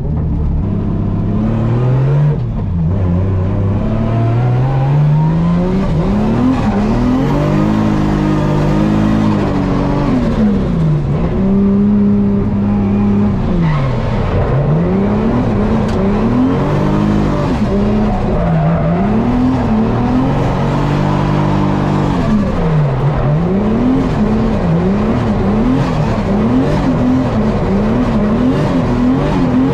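Toyota 86 drift car's engine heard from inside the cabin, under hard throttle. It climbs steadily through the revs, holds high with a few drops, then in the second half rises and falls in quick swings about twice a second as the throttle is stabbed through a drift.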